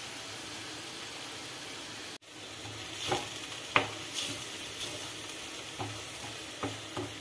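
Crushed soya and onion momo filling sizzling in hot oil in an iron kadhai, as a steel spoon stirs it. The sizzle is steady, drops out for a moment about two seconds in, and from about three seconds on the spoon scrapes and knocks against the pan several times.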